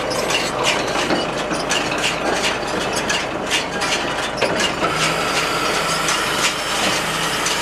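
Tractor-drawn round baler working: steady clattering and clicking of its chains and rollers over a tractor engine's running. About five seconds in, a steady high whine joins for a second and a half.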